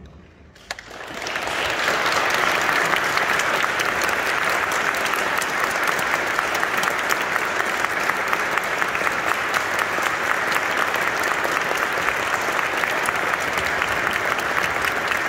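Audience applauding. The clapping swells in over the first second or two, then stays steady and dense.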